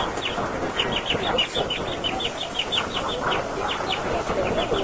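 A steady run of short, high, falling chirps, several a second, over the constant murmur of a street crowd.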